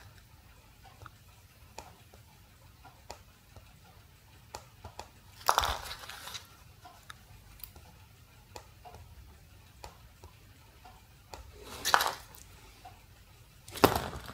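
Handling noise of a small shock baton and a neon lamp on cardboard: scattered faint clicks and three brief rustles, about 5 s in, about 12 s in, and the last near the end as the baton is moved.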